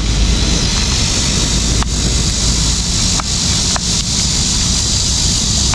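Pempek (fried fish cakes) sizzling steadily in hot oil in a pan on a portable gas stove, over a low rumble. A metal spoon clinks against the pan three times as the pieces are turned.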